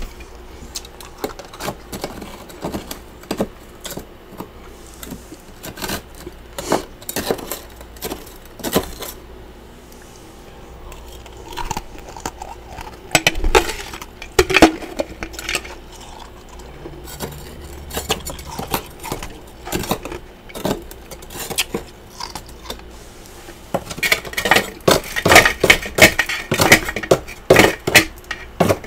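Freezer frost crunching close to the microphone: a string of irregular, sharp crunches and clicks that come thick and fast in the last few seconds.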